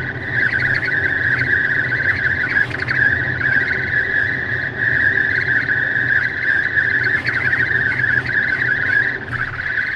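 Steady, high-pitched wind whistle leaking in at the passenger window of a Tesla Model X at highway speed, over the low rumble of road noise. The whistle is a fault that needed a trip to service.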